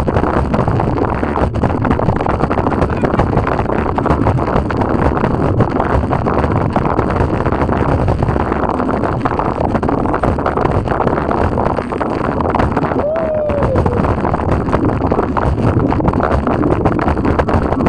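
Kick scooter's hard wheels rolling fast over a concrete sidewalk: a loud, continuous rough noise with many small clicks and rattles, mixed with wind buffeting the action camera's microphone.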